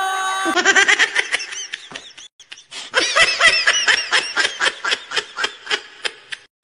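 A woman laughing hard in quick repeated bursts. She breaks off for a moment about two seconds in, then laughs again.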